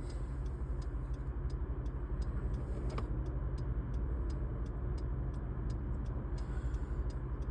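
Car interior road noise: a steady low rumble of the car driving, with a faint regular ticking running through it.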